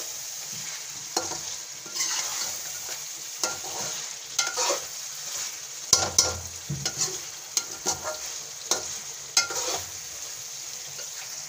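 Chicken karahi sizzling in oil in an aluminium karahi while a metal spoon stirs it, scraping and knocking against the pan about once a second, most sharply about six seconds in.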